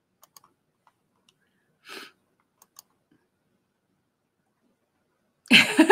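A few faint clicks and one short breath, then near the end a woman bursts out laughing loudly.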